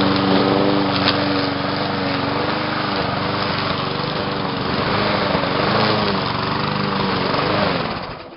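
Gas lawnmower's Briggs & Stratton engine running at full throttle, its pitch dipping and wavering under load as it cuts through tall weeds, then fading out near the end.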